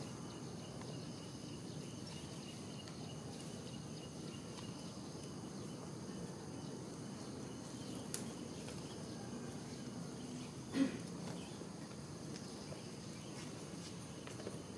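Quiet outdoor ambience with faint, steady high-pitched insect trilling. A single short, louder sound stands out about two-thirds of the way through.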